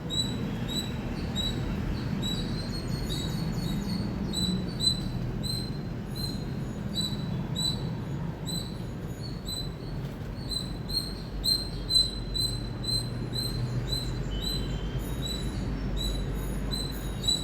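Indian palm squirrel giving a long run of short, high chirps, repeated evenly at about two a second, over a steady low rumble.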